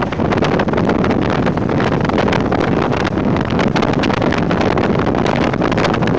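Steady wind buffeting on a camera mounted on the outside of a Jeep CJ7 driving fast on a dirt road, crackling throughout, with the vehicle's running and tyre noise underneath.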